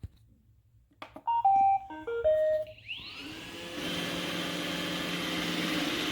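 iRobot Roomba 960 robot vacuum starting a cleaning run. It plays a quick tune of short beeps at stepping pitches, then its motor spins up with a rising whine and settles into a steady vacuum hum.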